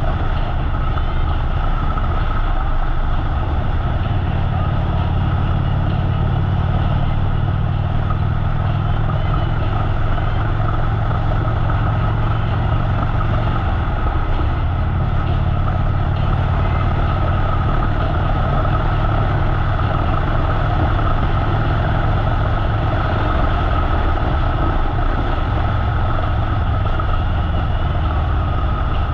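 Harley-Davidson motorcycle's V-twin engine running steadily while riding down the highway, with no revving or changes in pitch.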